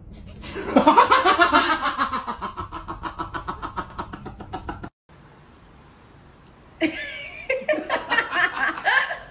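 A person laughing hard in a long run of quick, rapid pulses that slowly fades and then cuts off suddenly about five seconds in. About two seconds later a second wavering, voice-like sound with sliding pitch starts.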